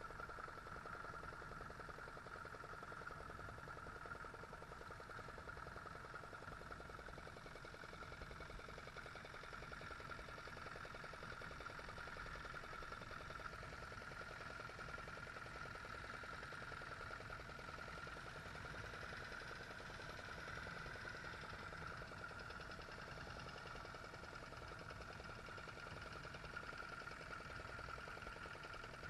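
Faint, steady engine hum with no change in pitch or level.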